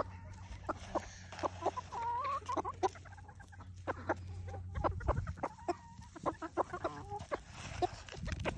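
Hens clucking in short calls while pecking at scattered grain, with a quick scatter of small sharp taps throughout.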